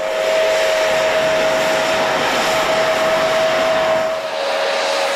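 Narrow-gauge steam locomotive venting a large jet of steam: a loud steady hiss with a steady high whistling tone running through it.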